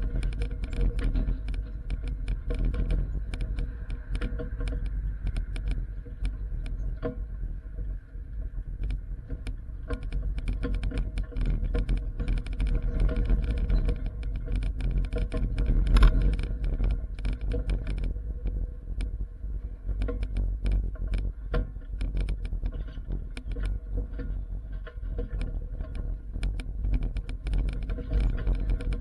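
Truck driving over rutted dirt: a steady low engine and road rumble with frequent rattles and clanks from the body and load, and one louder knock about halfway through.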